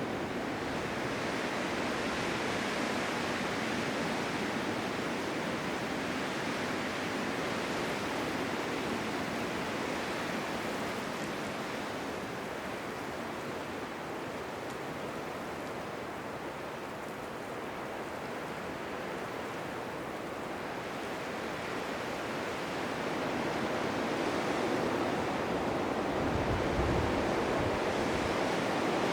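Blizzard wind blowing as a steady rushing hiss that eases a little in the middle and swells again near the end, with a brief low rumble of a gust a few seconds before the end.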